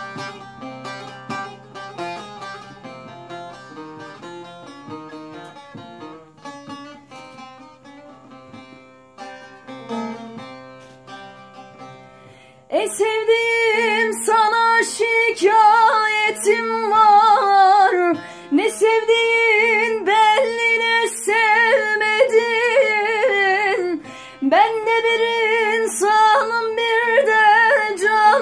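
A woman singing a Turkish folk song over a plucked-string instrumental backing. The instrumental plays softly alone at first; about halfway through she comes in loudly, in long held phrases with a wavering, ornamented line and short breaks for breath.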